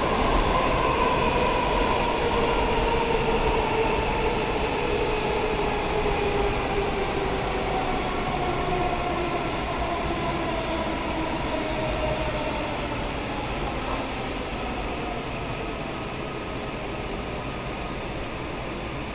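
Washington Metro 7000-series subway car heard from inside, running through a tunnel with a steady rumble. Its motor whine falls slowly in pitch and the whole sound gets gradually quieter as the train slows into a station.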